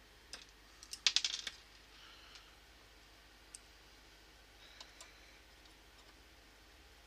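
Small hard parts of an ionizer clicking and clattering as they are handled and fitted together: a quick run of sharp clicks about a second in, then a few scattered ticks.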